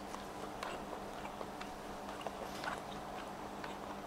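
Faint, soft chewing and small mouth noises of a person eating simmered fish, with a few light ticks, over a steady low hum.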